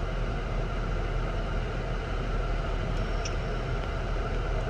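Steady low rumble with an even hiss over it, unchanging throughout: continuous mechanical background noise.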